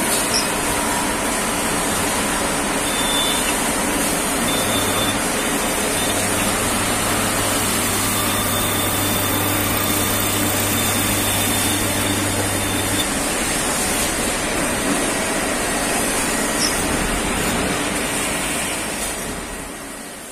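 CNC turning lathe running in production: a steady machining din, with a low hum and a faint high whine held from about four to thirteen seconds in. The noise fades away near the end.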